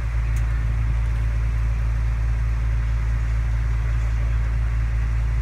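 JCB mini excavator's diesel engine running with a steady low hum.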